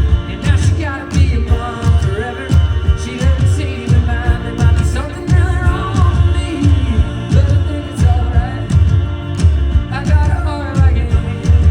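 A band playing a song live, with a singer over a steady, heavy beat.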